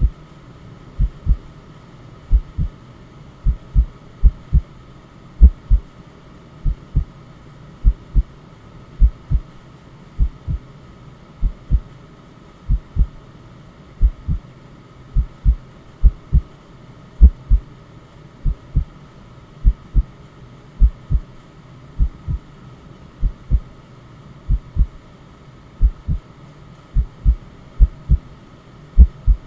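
Slow, steady heartbeat sound, a low double thump (lub-dub) a little more than once a second, layered over a steady white-noise hiss.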